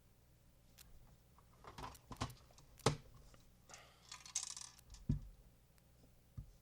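Puzzle box being tilted and turned in the hands, its ball bearing clicking and knocking inside the maze: several separate knocks, the loudest about three seconds in, and a brief scraping rustle around four seconds.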